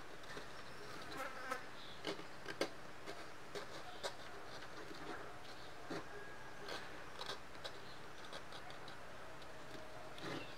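Small carving gouge scratching and ticking as it cuts fine lines into the hard, dry shell of a calabash gourd: quiet, irregular short scrapes and clicks over a low hiss.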